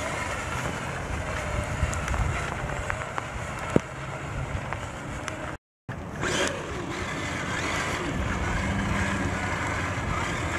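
Redcat Gen 8 RC crawler's electric motor and drivetrain running as it drives through shallow floodwater, tyres splashing through the water. The sound cuts out briefly just past halfway.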